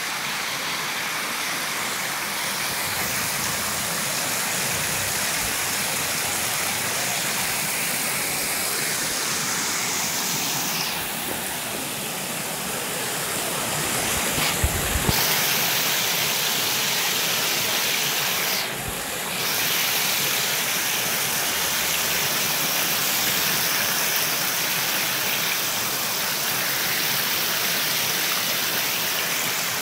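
Overflow from a full lake pouring over a stone weir: a steady rush of falling and churning water. A few short low thumps come about halfway through.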